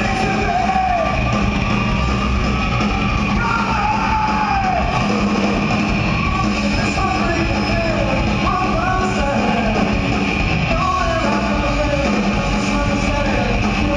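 Live psychobilly band playing loudly: upright bass, electric guitar and drums, with a voice singing over them.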